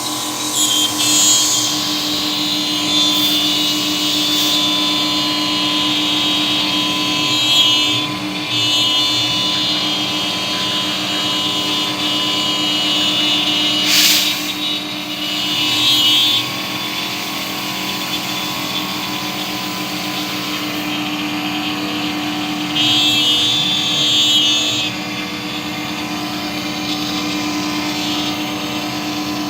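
CNC router running steadily with a constant spindle hum while cutting plastic sheet. A higher, harsher cutting whine swells in several stretches, and there is one sharp click about halfway through.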